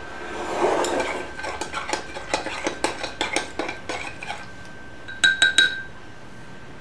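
A metal spoon stirring briskly in a small glass jar, clinking rapidly against the glass, then three louder ringing clinks a little over five seconds in.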